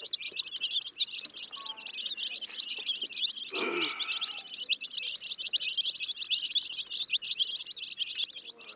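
A group of baby chickens (chicks) peeping constantly, many short, high chirps overlapping. About three and a half seconds in, a brief lower sound falls in pitch over the chirping.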